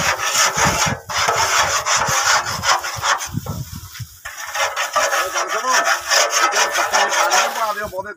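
Shovel and hand scraper rasping against the scorched iron surface of a large jaggery-boiling pan, in repeated scraping strokes. They are scraping off burnt-on sugar crust after the pan has been fired empty to clean it. The strokes briefly ease about three and a half seconds in.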